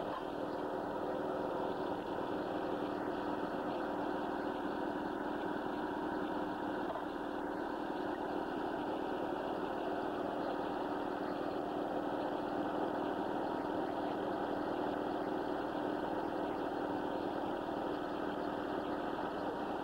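Engine of a portable sawmill running steadily at a constant speed.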